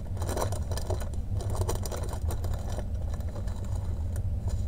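Small zip-top plastic bags of diamond painting drills crinkling and rattling as they are handled, a quick run of crackles that thins out after about three seconds. A steady low hum runs underneath.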